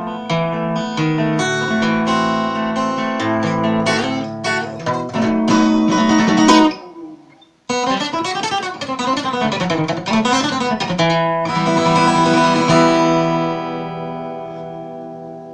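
Solo acoustic guitar playing the closing section of a composed piece. Plucked melody notes break off about seven seconds in, then come quick rising and falling scale runs, and the piece ends on a chord left to ring out and fade.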